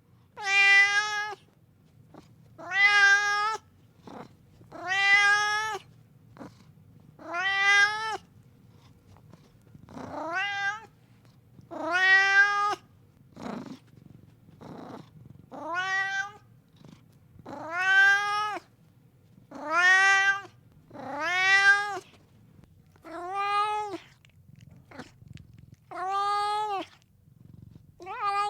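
Siamese cat meowing over and over at feeding time, about a dozen loud meows, one roughly every two seconds. Each call rises in pitch at its start and then holds level for under a second.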